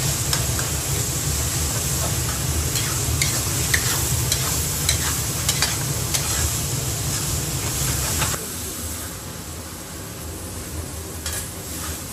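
Minced meat sizzling in a wok while a metal spatula stirs and scrapes it, with short clicks of the spatula against the pan. About eight seconds in, the sizzle drops much quieter.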